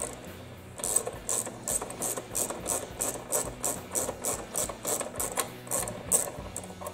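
Socket ratchet clicking as a 10 mm fastener is backed out by hand, a steady run of clicks about three a second that stops shortly before the end.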